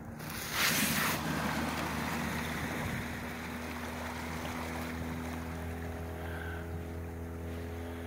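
Outboard motor of a small open boat running steadily at speed, a low even drone. A brief loud rush of noise about half a second in.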